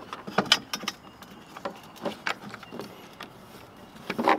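Rhino-Rack roof rack leg and plastic foot pad being handled and pushed together by hand: a run of irregular clicks and knocks, the loudest cluster near the end.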